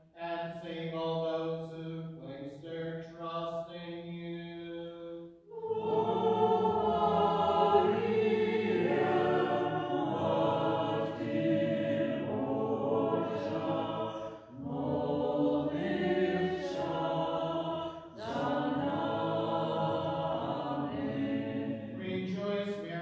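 Byzantine-rite liturgical chant in a moleben: a single voice intoning on a near-level pitch, then from about five and a half seconds a louder, fuller sung passage with several voices in harmony, with brief breaths between phrases.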